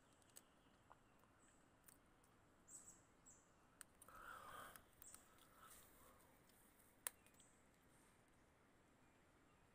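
Near silence: faint outdoor ambience with a few faint sharp clicks and brief high chirps, and a short soft rustle about halfway through.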